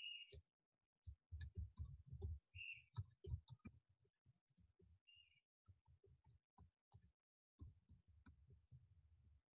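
Quiet typing on a computer keyboard: irregular key taps in quick runs. Three short high beeps sound along the way, at the start, about two and a half seconds in and about five seconds in.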